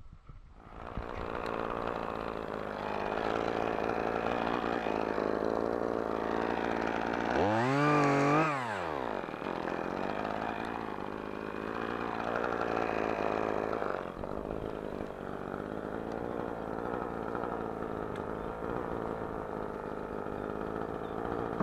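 Chainsaw engine running steadily, revved up and back down once about eight seconds in.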